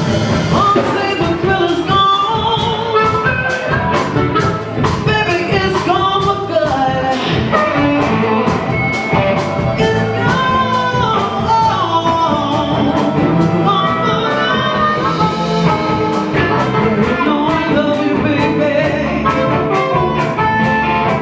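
Live rock band jamming: electric guitar lines over drums, with a steady cymbal beat of about two to three strikes a second.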